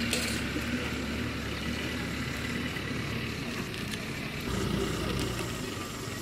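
Steady background noise: a low rumble with a hiss over it, and a few faint ticks.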